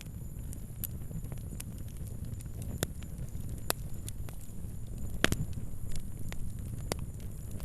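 Wood fire crackling: irregular sharp pops and snaps over a low steady rumble of burning. The loudest pop comes about five seconds in.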